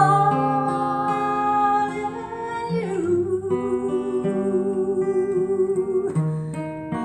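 A woman singing solo with an acoustic guitar, holding the word "am" as one long high note. About three seconds in she drops to a lower held note with a clear vibrato, while picked guitar chords ring beneath.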